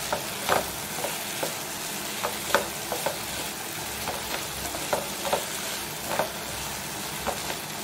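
Diced potatoes frying in oil in a non-stick pan, a steady sizzle, while a wooden spatula stirs them with repeated short scrapes and knocks against the pan.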